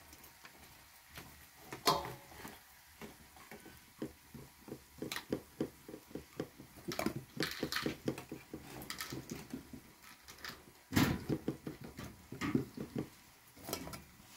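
Food-preparation handling sounds: a run of soft taps, about three a second, as walnut-filled dough pastries are pressed and crimped on a board, then louder metal knocks and clatter near the end as a slotted spoon lifts fried pastries into a steel pot.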